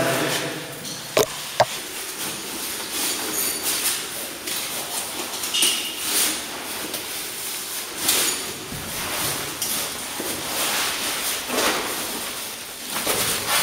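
Caver's gear scraping and shifting against rock and rope while hanging in a vertical shaft, with two sharp clicks a little over a second in, over a steady hiss.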